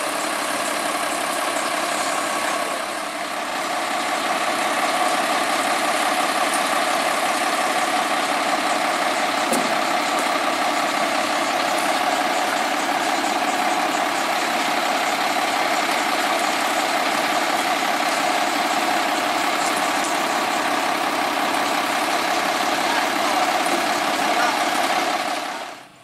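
Heavy diesel vehicle engine running steadily, an even drone with a steady whine over it. It dips briefly about three seconds in and cuts off abruptly near the end.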